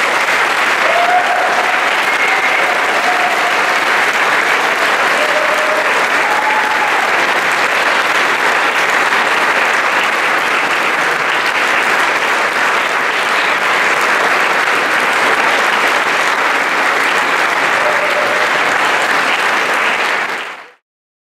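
Audience applauding steadily after the recorder orchestra finishes, with a few faint calls from the crowd in the first seconds. It fades out quickly near the end.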